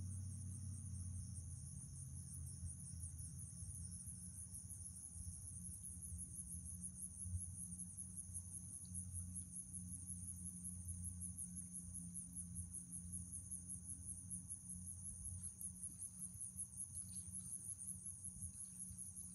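Steady high-pitched chorus of insects, crickets or similar, trilling with a fast pulse. A low rumble of wind on the microphone runs underneath.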